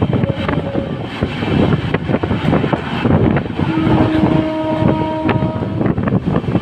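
Express train running at speed, heard from onboard an LHB coach: steady wheel-and-rail rumble with rattling clatter, and wind buffeting the microphone. About three and a half seconds in, a steady pitched tone sounds for about two seconds.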